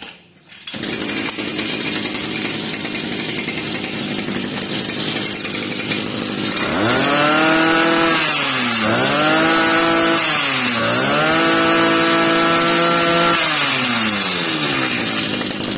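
Komatsu Zenoah 40 backpack brush cutter's two-stroke engine starting up less than a second in and idling. About six seconds in it is revved up three times, the third rev held for a couple of seconds before it drops back toward idle.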